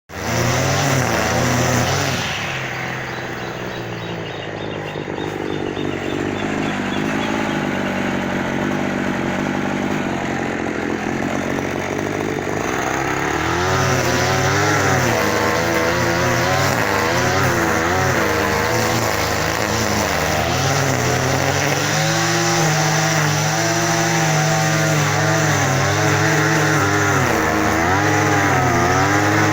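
An engine running loudly, revved up and down repeatedly from about halfway on.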